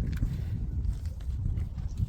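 Wind buffeting the microphone: a low, uneven rumble that rises and falls.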